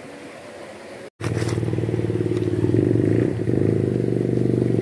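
A steady engine drone at an unchanging low pitch starts after a brief dropout about a second in.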